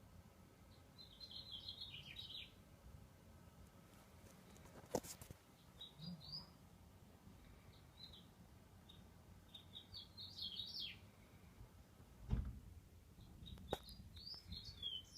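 A sleeping cat snoring faintly, with a high, squeaky whistling wheeze on each breath about every four seconds. A couple of short knocks sound in the middle and near the end.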